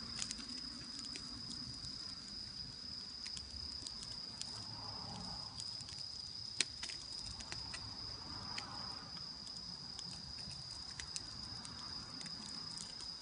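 Wood campfire crackling with scattered small pops and one sharper pop about halfway through, over a steady high-pitched trill of insects singing.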